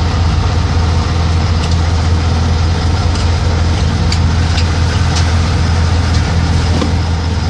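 Diesel engine of an Astros II MK 6 rocket-launcher truck idling, heard from inside the cab as a steady low hum.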